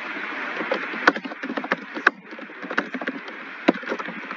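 Computer keyboard keys clicking at an irregular typing pace, a few strokes much louder than the rest, over a steady background hiss.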